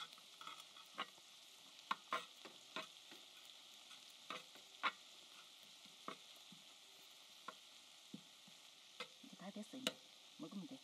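Kimchi fried rice sizzling quietly and steadily on a cast-iron pot-lid griddle while it is stirred with a spatula and metal tongs, the utensils clicking and scraping irregularly against the metal.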